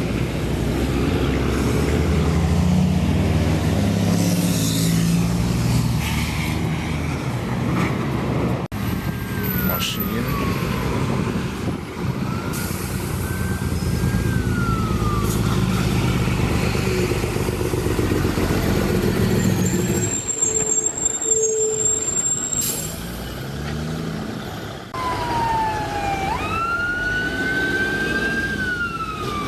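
Heavy diesel semi-truck engines in a run of short clips, running and revving with a deep, steady drone. From about a third of the way in, a siren-like wail slides up and down over the engines, loudest near the end.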